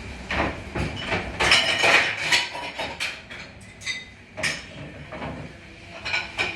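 Dishes, pots and cutlery clattering and clinking as they are handled and washed: irregular knocks and ringing clinks, busiest in the first half and sparser after.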